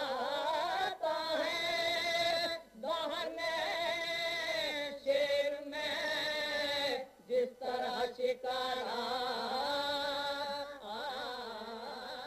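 A solo voice chanting an Urdu elegy (noha) in long, held, wavering notes, with a few short breaks for breath.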